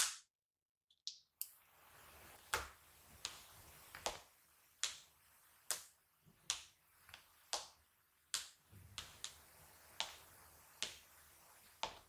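Thick white slime popping and clicking as a fingertip presses the red jelly charms set in it, one crisp pop a little more than once a second. A sharper click and a brief dropout come right at the start.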